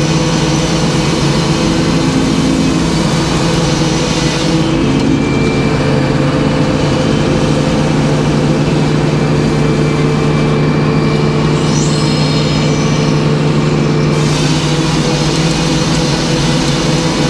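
Circular sawmill blade cutting a slab off a poplar log as the carriage feeds it through, over the steady drone of the running mill. The cut is heard from about four seconds in until about fourteen seconds, when the blade clears the log.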